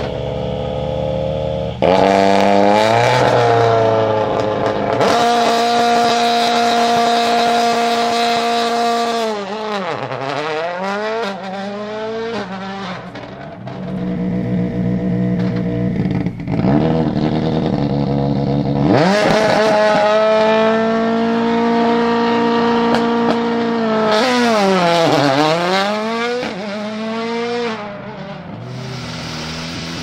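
Two World Rally Cars doing launch-control starts one after the other: a Toyota Yaris WRC, then a Ford Fiesta WRC. Each turbocharged engine is held at high, steady revs on the launch limiter for several seconds, then the revs drop and climb again as the car pulls away. The first launch begins about two seconds in; the second comes about two-thirds of the way through.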